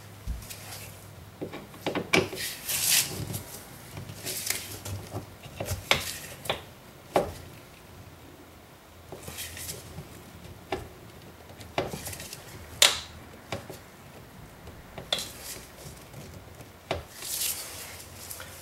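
Screwdriver backing out a screw under the bottom edge of an Audi A4 (B6/B7) plastic door panel: scattered metal clicks and taps with short scraping rasps, one sharper click about two-thirds of the way in.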